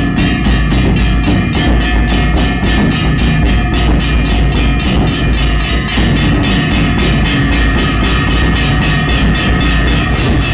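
Nagada drums and large brass cymbals played together in a fast, even beat of about four strokes a second. The cymbals leave a lingering metallic ring over a steady low drum boom.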